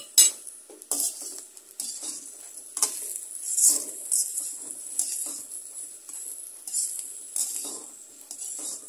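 A slotted steel spatula scraping and knocking against a steel kadai at irregular intervals as potatoes are stir-fried, over a steady hiss of oil sizzling.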